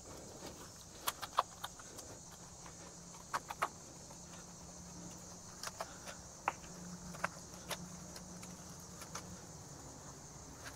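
Steady high drone of cicadas, with scattered light clicks and taps throughout.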